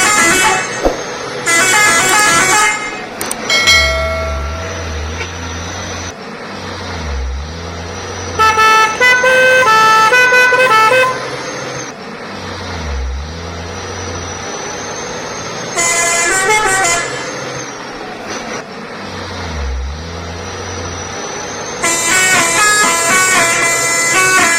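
Truck 'telolet' multi-tone air horns playing short melodic tunes of stepping notes in several bursts, with a low rumble pulsing between them.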